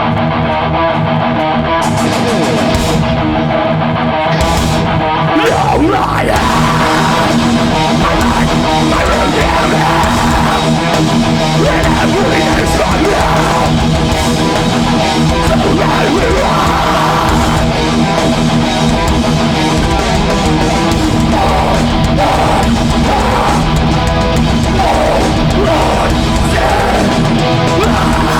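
Hardcore metal band playing live: heavy guitar riffing over bass and drums, the sound growing brighter about six seconds in.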